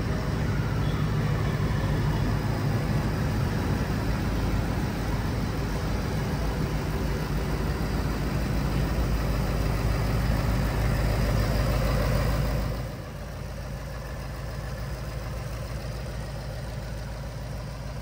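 2024 Ford Mustang GT's 5.0-litre Coyote V8 running steadily at idle. About thirteen seconds in, the sound drops noticeably and then holds at the lower level.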